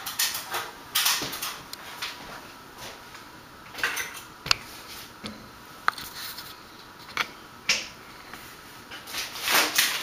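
1991 SMC Promo Deluxe ceiling fan running on low speed, a faint steady hum under irregular clicks, knocks and short rustles that come a few times a second apart with no regular beat.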